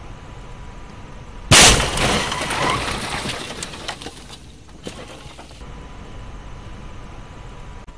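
A 55 mph car crash heard from inside the cabin: steady running noise, then about one and a half seconds in a sudden very loud impact as the car hits, the airbag deploys and the windshield cracks. Breaking and rattling follows for a couple of seconds and dies away into a few scattered clicks.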